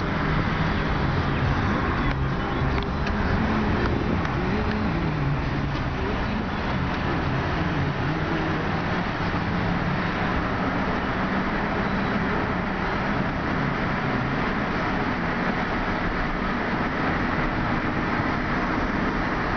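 A car driving at road speed, heard from inside: steady tyre and wind noise with a low hum that wavers in pitch during the first half.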